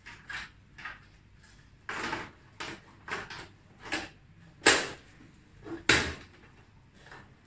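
Extruded-aluminium LED wraparound light fixture being handled, turned over and set against the tables: a string of irregular knocks and clunks, about ten in all, the two loudest a little past the middle.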